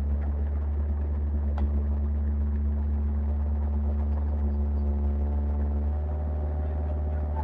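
Old tracked backhoe's diesel engine running steadily while the machine travels carrying a heavy log, with a single sharp click about a second and a half in. The engine note shifts slightly near the end.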